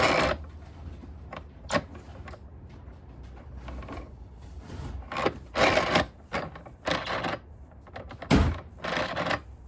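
Irregular plastic clacks and rubbing from an O-Cedar EasyWring spin mop bucket's pedal-driven spin mechanism being worked by hand, right side up, where it fails to spin. The loudest knocks come about five and a half seconds in and near the end.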